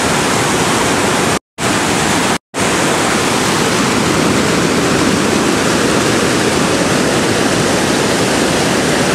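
Loud, steady rushing of whitewater rapids, broken twice by short total silences about one and a half and two and a half seconds in.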